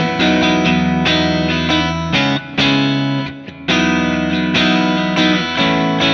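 Stratocaster-style electric guitar played through a digital amp profile of a Bad Cat Hot Cat 40 tube head, strumming a rhythmic run of chords. The phrase breaks off briefly a little past halfway, then picks up again.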